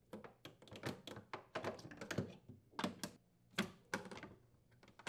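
Irregular light clicks, taps and clacks of a wine cellar refrigerator's metal rack slide rail and its plastic clip being worked loose and unclipped from the cabinet wall, a few louder clacks among them.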